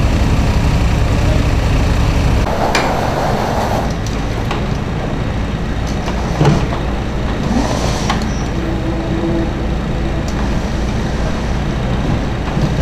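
Steady low rumble of a motor vehicle engine running, with a few scattered knocks and a short, louder knock about six and a half seconds in.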